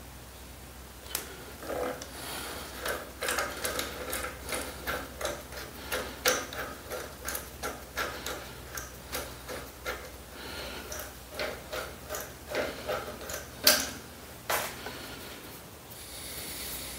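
Hand rivet nut tool clicking as it is worked on a rivet nut: irregular sharp metal clicks, two or three a second, with one louder click near the end.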